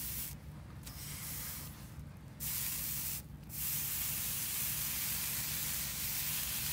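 Hissing of water flashing to steam as a wet sponge is pressed against a freshly soldered brass axle sleeve, quenching the hot solder joint. The hiss comes in short spells with brief breaks at first, then runs steadily through the second half.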